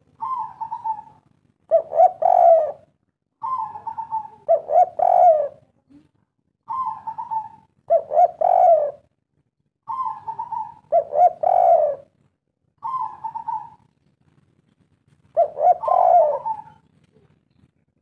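Spotted dove cooing its three-part 'kuk 3' song about five times, roughly every three seconds. Each phrase is a higher first coo followed by two lower, louder coos.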